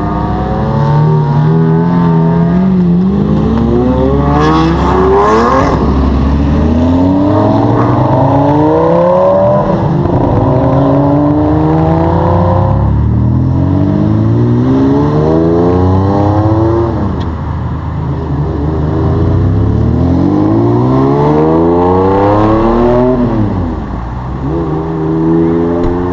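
Lamborghini supercars accelerating hard away from a standing start one after another, engines revving up through the gears in repeated rising sweeps, with a sharp drop and rise in pitch near the end.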